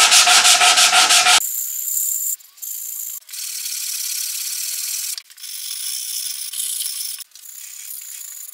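Coarse 80-grit sandpaper on a hand sanding block rubbed fast back and forth over the wooden guitar body, stripping the factory sealer down to bare wood. After about a second and a half the scratching turns thinner and hissier and runs in several stretches broken by short gaps.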